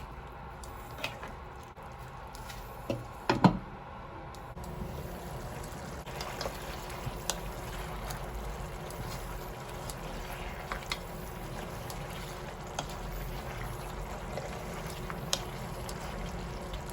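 Liquid running or being poured, a steady wash of sound with scattered light clicks and a brief louder clatter about three and a half seconds in.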